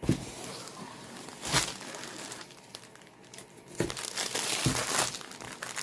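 Plastic packaging bag of a diamond art kit crinkling as it is handled, in irregular rustles with sharper crackles about a second and a half in and again around four and five seconds in.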